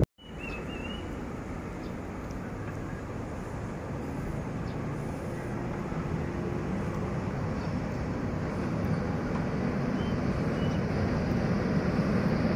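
A diesel-electric locomotive approaching: a steady low engine rumble that grows slowly louder.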